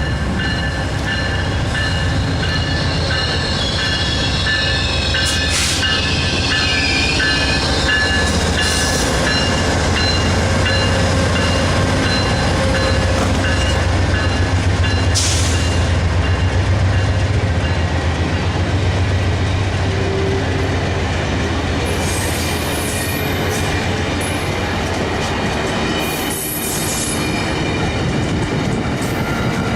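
A large vehicle running with a steady low rumble, with several thin, steady high-pitched tones and a few sharp clicks.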